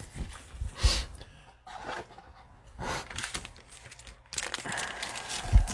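Trading cards being handled, with plastic card sleeves and wrappers crinkling and rustling in several short bouts. A soft knock comes about a second in and another near the end.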